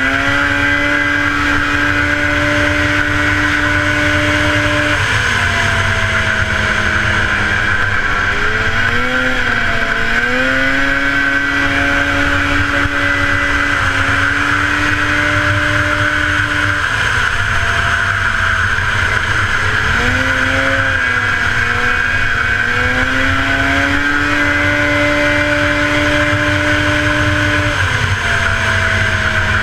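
1977 Polaris TX-L snowmobile's two-stroke engine running hard at race speed. Its pitch holds high for several seconds, then dips and climbs back, about every ten seconds round the ice oval. A steady high whine and a rushing of wind and snow run under it.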